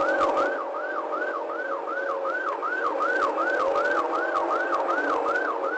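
Police car siren in rapid yelp mode, a fast rise-and-fall wail repeating about three times a second, over a steady lower tone.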